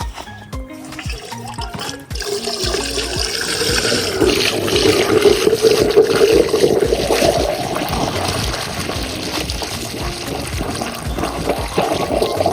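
Water being poured into a pump's priming port to fill the inlet hose: a steady gushing pour that starts about two seconds in and swells toward the middle. Background music with stepped notes plays at the start.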